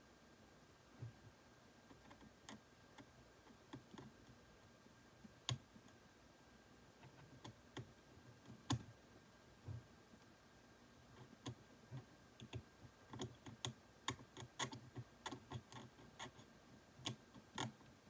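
Metal dental hand scaling instrument clicking and scraping against the plastic teeth of a typodont in short, irregular strokes. The clicks are sparse at first and come quickly and closely together over the last five seconds or so.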